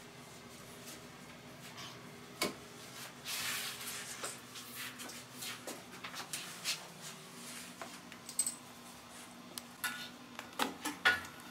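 Metal shower fittings and tools being handled during assembly: scattered clicks, clinks and taps, with one sharp knock about two seconds in, a brief scrape, and a quick run of clinks near the end.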